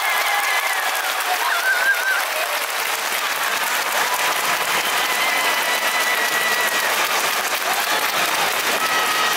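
Large baseball stadium crowd clapping and cheering, a dense steady patter of applause with a few drawn-out higher calls carrying above it.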